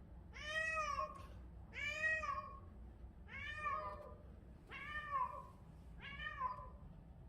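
A cat in heat calling with five long, loud meows about a second and a half apart, each rising then falling in pitch.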